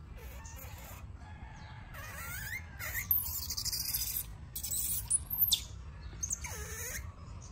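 Baby macaque squealing and crying in several high, wavering cries that rise and fall in pitch, loudest in the middle, as an older young monkey pins it down on its back.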